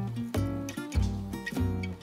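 Background music: acoustic guitar with a heavy bass, its notes changing about every half second.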